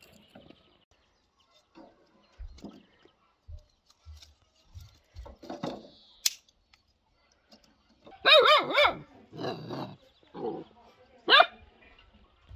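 Dog barking: a run of about four or five loud barks starting about eight seconds in.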